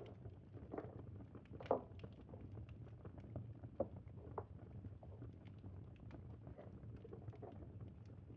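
Crackling wood fire: irregular small pops and crackles over a low steady rumble, with one sharper crack about two seconds in.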